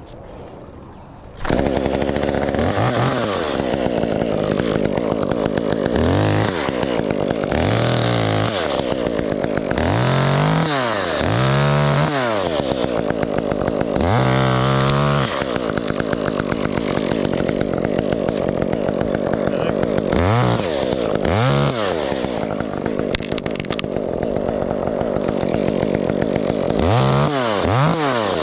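Gas chainsaw cutting limbs off a fir tree, coming in sharply about a second and a half in and then revving up and down again and again.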